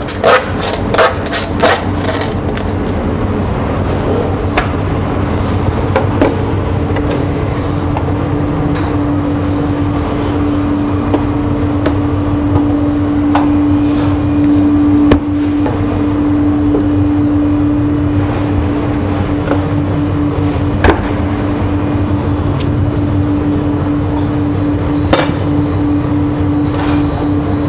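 A butcher's bone saw rasping through lamb bone in about half a dozen quick strokes at the start. After that there is a steady machine hum, joined about six seconds in by a steady droning tone, with a few sharp knocks of meat and tools on the cutting board.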